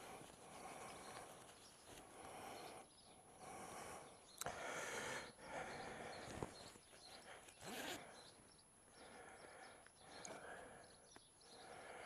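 Faint breathing and rustling of a textile motorcycle jacket as a plastic vent is worked up under the sleeve, with a few small clicks.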